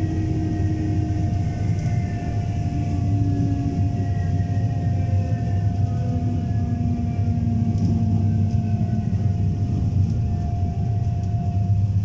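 EP3D electric train running on the rails with a low rumble, its traction equipment giving a whine of several tones that slowly fall in pitch as the train slows.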